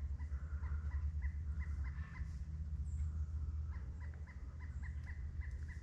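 An animal calling in a series of short, evenly spaced notes, about three a second, over a steady low rumble.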